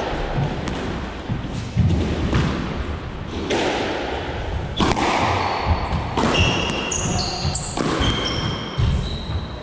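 Squash ball struck hard, smacking off rackets and court walls in a rally, with several short, high squeaks from players' shoes on the wooden floor in the second half.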